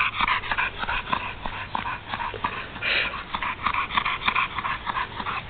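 Pit bull panting hard in rapid, short breaths, with a louder breath about three seconds in: he is winded after over an hour of leaping at tree limbs.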